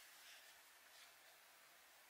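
Near silence: faint room hiss.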